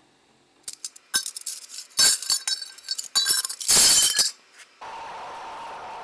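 A run of sharp clinking and clattering with bright ringing, loudest around the middle, for about three and a half seconds. It stops, and shortly before the end a melting furnace's burner starts running with a steady hum.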